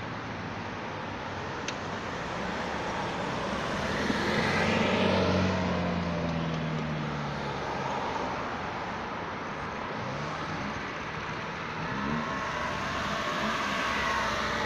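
Road traffic of cars and vans driving round a roundabout. One louder vehicle passes about five seconds in with its engine note falling, and engines pull away with rising pitch near the end.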